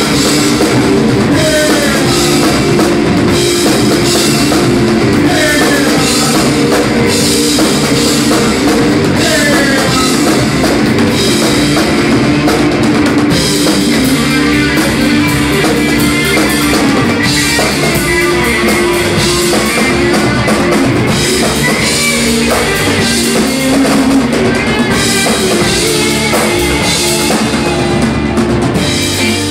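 Rock band playing live and loud: a Sonor drum kit driving the beat under electric guitar and bass guitar, without a break.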